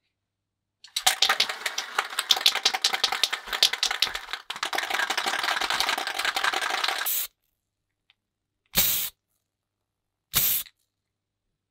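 Aerosol can of clear coat: its mixing ball rattles rapidly as the can is shaken, then a spray hisses for about three seconds and cuts off, followed by two short spray bursts near the end.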